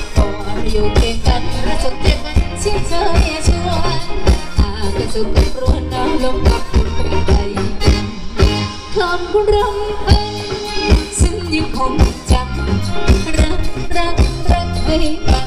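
Thai ramwong dance song played by a band: a singer over a steady, driving drum beat with bright percussion.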